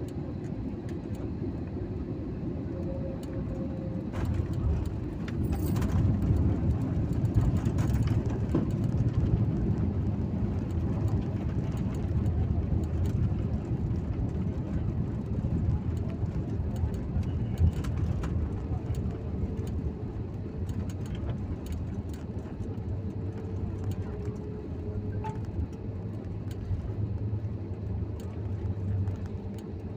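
Airliner cabin noise during a landing on a wet runway: a steady low rumble swells about four seconds in as the jet touches down, stays loud for several seconds during the rollout, then slowly eases as the aircraft slows.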